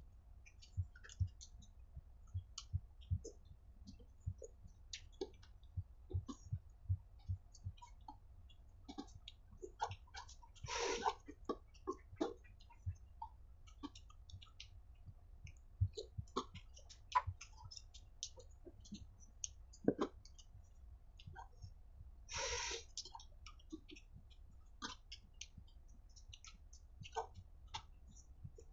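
Close-up eating sounds from a bowl of seblak: irregular wet mouth clicks and chewing, with two brief louder noisy sounds about eleven and twenty-two seconds in.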